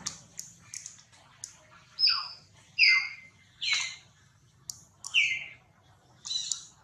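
A series of five short, high animal calls, each sliding down in pitch, coming about a second apart, with a few faint clicks between them.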